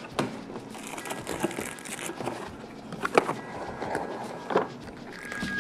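Cardboard camera box being opened by hand: flaps lifting, cardboard rubbing and sliding, and plastic wrap crinkling, with a few sharp taps and knocks against the table. Background music comes in near the end.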